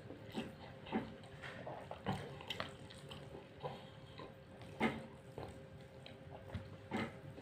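Soft, irregular wet clicks and smacks of eating chicken biryani by hand: chewing, and fingers working the rice in a foil tray, over a faint steady hum.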